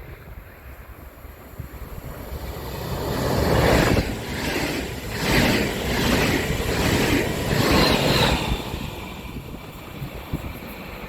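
A train passing at speed: a rushing noise builds to a loud peak about four seconds in, then pulses in a regular rhythm as the cars go by, and fades. Wind buffets the microphone throughout.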